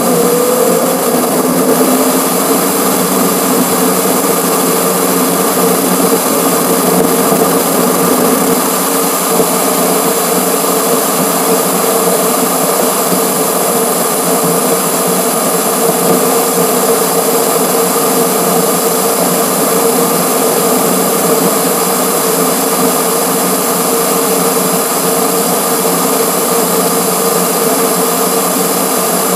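Car driving on a highway, heard through a camera mounted in the front grille and played back at six times speed. The road, wind and engine noise become a loud, steady drone with a constant hum tone.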